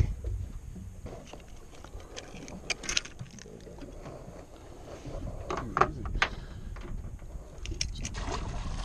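Small fishing boat at rest on the water, with a steady low rumble of wind and water against the hull, and several sharp clicks and knocks as fishing tackle and lip grips are handled, the loudest about six seconds in.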